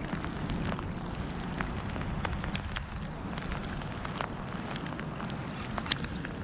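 Steady rain falling, with scattered sharp taps of individual drops striking close to the microphone.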